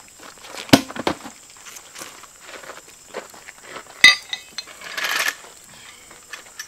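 A car wheel set down on a gravel road with a couple of knocks, then, about four seconds in, a sharp metallic clink of a tool with a short ring, followed by a brief gravelly crunch.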